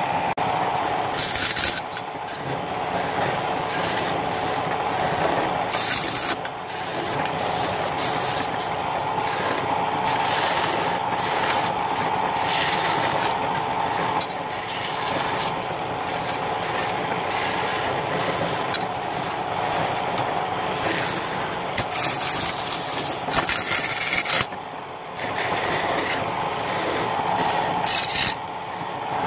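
Wood lathe running with a steady whine while a turning chisel scrapes and cuts a spinning sono (Indonesian rosewood) spindle, the cutting rising and falling in repeated louder scraping bursts.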